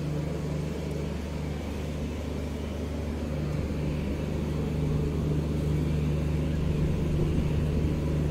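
Diesel locomotive engine idling: a steady low drone with a few constant tones, a little louder from about halfway through.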